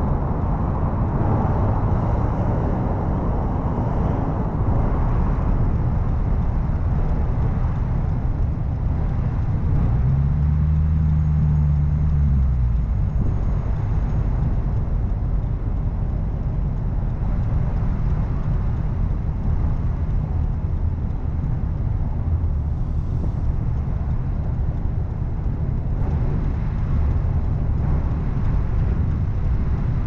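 Low, steady rumble of a car in slow stop-and-go traffic, with an engine briefly rising and falling in pitch about ten seconds in.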